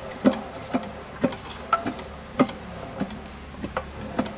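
Metal hand tools clinking and knocking against metal engine parts: about nine sharp taps at an irregular pace of roughly two a second, some with a short metallic ring.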